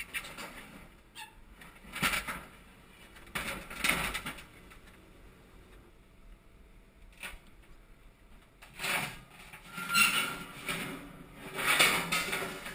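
Steel sheet piles scraping and knocking against each other and against an excavator's grab as a pile is set onto a stack. It comes in several separate squealing scrapes, the loudest near the end.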